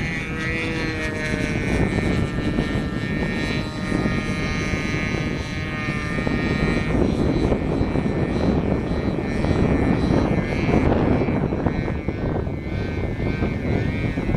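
Radio-controlled model airplane flying overhead: its motor and propeller give a steady whine whose pitch rises and falls as the plane turns and passes, over a low rushing noise.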